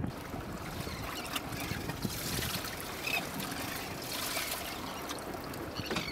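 Water trickling and splashing in a boat's live-bait well, fed by a hose, with two short high chirps about three seconds in and near the end.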